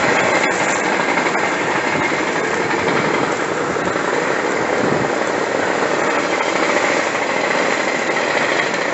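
Wildfire burning through brush and trees at close range: a steady, dense crackle of flames.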